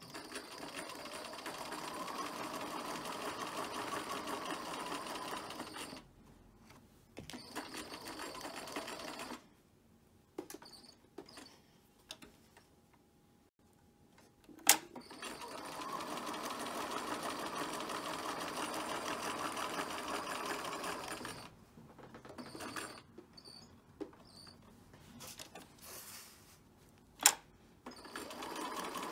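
Electric home sewing machine stitching through stiffened, interlined fabric in stop-start runs: a long run at the start, a short one, a quiet pause with light clicks, another long run from about halfway, then short bursts. Two sharp clicks, the loudest sounds, come about halfway through and near the end.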